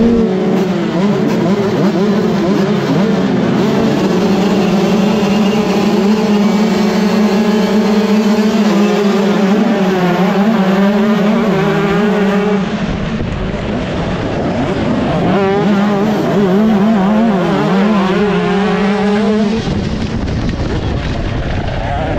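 125cc two-stroke motocross bike engine running at high revs under load, its pitch held high, easing off about twelve seconds in, climbing back up a few seconds later and easing off again near the end.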